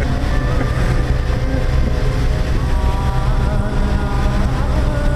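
A Lagoon 40 sailing catamaran's diesel engine runs steadily under way, a constant low rumble, with wind buffeting the microphone.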